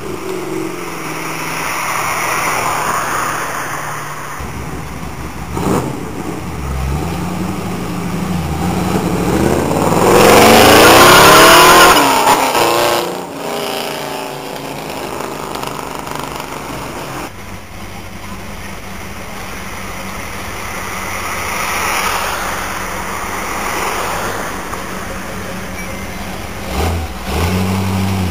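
American muscle-car V8 engines running and revving across several clips. The loudest moment comes about ten to twelve seconds in, when one engine is revved hard with its pitch sweeping.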